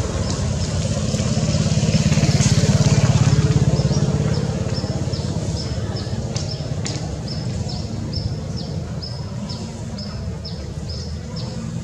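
An engine running steadily, louder for the first few seconds and then fading somewhat. From about four seconds in, a short high chirp repeats about three times a second.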